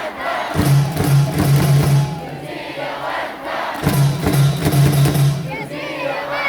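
Baseball stadium crowd singing and chanting a cheer song over music. Two runs of quick low beats, about four a second, come near the start and again past the middle.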